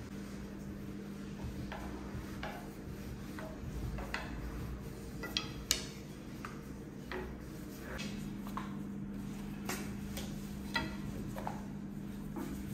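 Irregular light clicks and taps of kitchen utensils or tools being handled during baking prep, over a steady low hum.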